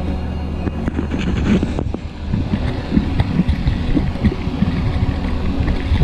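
Mountain bike rolling down a rough dirt trail: a low tyre rumble with quick, irregular knocks and rattles from the bike over rocks and roots, and wind on the microphone.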